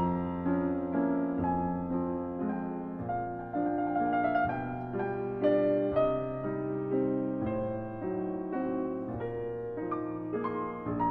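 Background piano music, a gentle melody of sustained notes.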